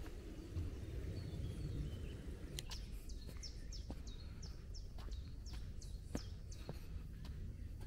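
A songbird sings a series of high whistled notes, each sliding downward, about two or three a second, starting about two and a half seconds in and stopping near the end, over footsteps on a dirt path and a low rumble of walking.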